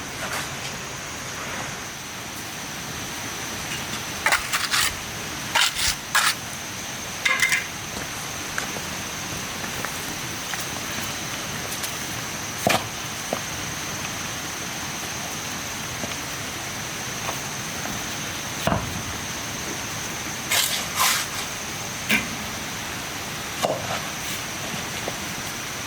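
Irregular sharp knocks and clacks, some in quick pairs, over a steady background hiss with a constant high-pitched tone.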